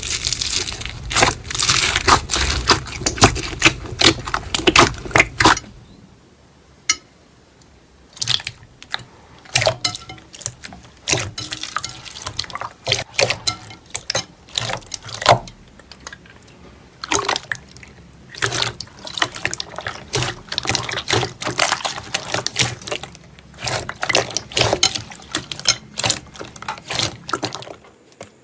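Slime being squeezed and worked by hand, making wet, sticky crackles and pops. The crackling is dense for the first five seconds or so, then after a short lull it turns into sparser popping clicks.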